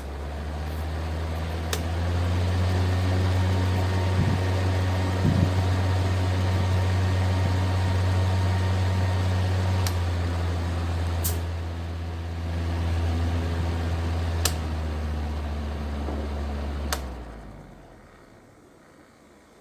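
Cecotec EnergySilence 6000 PowerBox floor fan running with a steady low motor hum, dipping briefly in the middle, with several sharp clicks. The hum dies away near the end.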